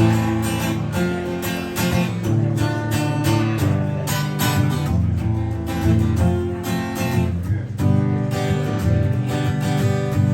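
Acoustic guitar strummed steadily through an instrumental passage of the song, with no singing, between the chorus and the next verse.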